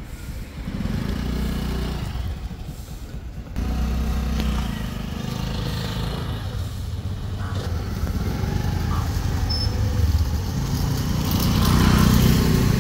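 Small motor scooter engine running as the scooter is ridden slowly out of a yard. The engine note steps up about three and a half seconds in and grows louder toward the end.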